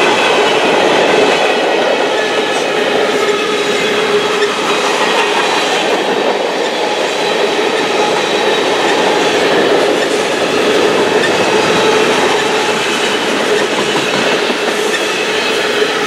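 Freight cars of a long, heavy manifest train rolling past at track speed: a steady rumble and clatter of steel wheels on the rails, with a thin steady whine running through it.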